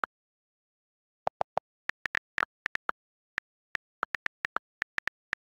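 Key-click sounds of an iPad's on-screen keyboard as a message is typed: about twenty short, crisp ticks in quick irregular runs, some slightly lower in pitch than others, with dead silence between them.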